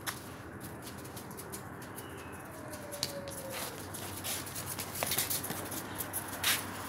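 Claws of Central Asian Shepherd puppies clicking and pattering on paving tiles as they play and walk about, the clicks busier and louder in the second half. A faint falling call sounds partway through.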